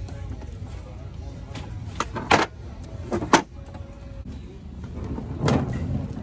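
A few sharp clacks and knocks of things being handled, the longest a little before the end, over a steady low background din.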